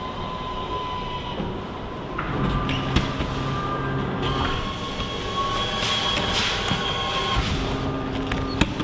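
Food vending machine's delivery mechanism running, motors whirring and whining in stages with a few clicks as it carries a boxed meal to the pickup bay. A sharp click near the end as the pickup flap is opened.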